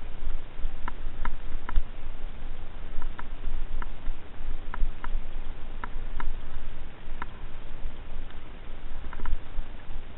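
Fat bike riding on a snowy trail: a low rumble from the tyres and wind on the microphone, with scattered light clicks from the bike.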